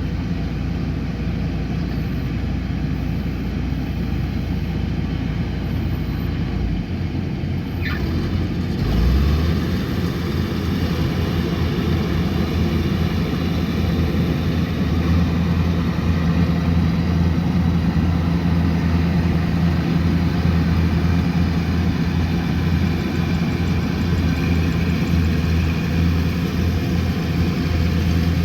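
Kubota combine harvester's diesel engine running steadily under working load, a low hum. About eight seconds in its pitch shifts, and from about fourteen seconds it runs slightly louder.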